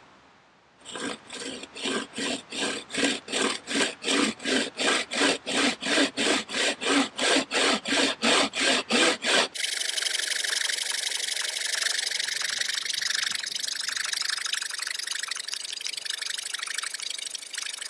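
Improvised bowsaw, a thin blade tensioned in a bent green branch, cutting through dry, hard beech in a steady rhythm of about three strokes a second. About nine and a half seconds in, it abruptly becomes a continuous, high, fast rasp as the sawing is played back sped up.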